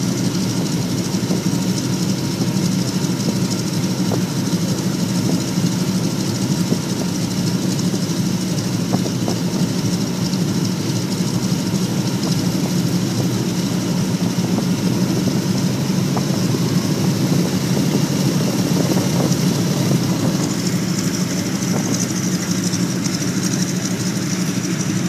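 Ford Tri-Motor's wing-mounted radial engine idling with its propeller turning slowly as the plane taxis, close up from the cabin: a steady, low drone.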